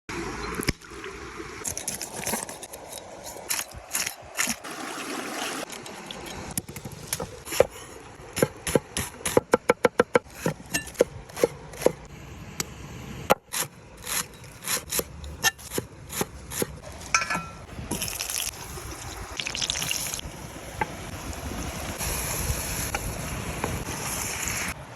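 Food preparation sounds: a series of sharp knocks, like a knife striking a cutting board, including a quick run of about seven chops about ten seconds in. A steady hiss fills the last several seconds.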